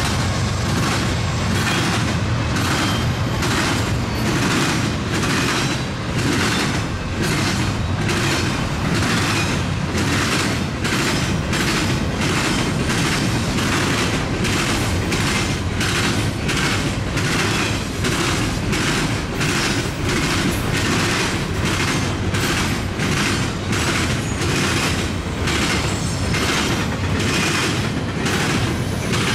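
Double-stack intermodal freight cars rolling past at speed: a loud, steady rumble of steel wheels on rail with an even clatter of wheel clacks, about one to two a second.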